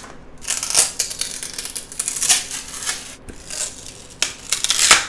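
Textured spring-steel build plate from a Bambu Lab A1 3D printer being flexed to release a printed plastic part: irregular crackling and sharp snaps as the print pops free of the plate, the loudest near the end.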